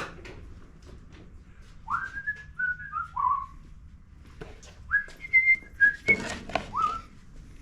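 A man whistling a short tune in clear single notes that slide and step up and down, with a few sharp clicks of handling in between.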